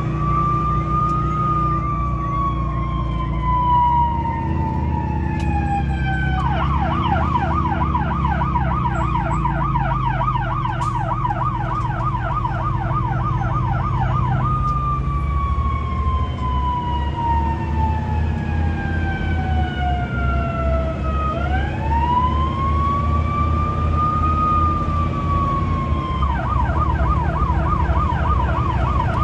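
Fire engine's electronic siren heard from inside the cab, alternating between a slow rising-and-falling wail and a rapid yelp over the truck's steady engine drone. It switches to yelp about six seconds in, back to wail about eight seconds later, and to yelp again near the end.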